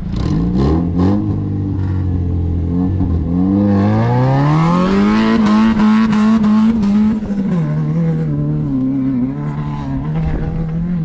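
Off-road race car's engine revving: the pitch climbs steeply about four seconds in, holds high for a few seconds, then eases back to a lower, steady drone that edges up again near the end.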